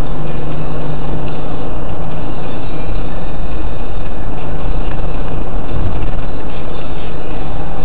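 Loud, steady engine and road noise of a car driving in city traffic, picked up by a dashcam, with a constant low hum.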